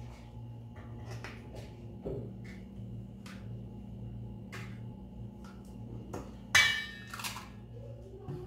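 A metal spoon scraping and tapping thick Greek yogurt out of a plastic cup in small clicks, and one loud ringing clink about six and a half seconds in as the spoon strikes the steel plate.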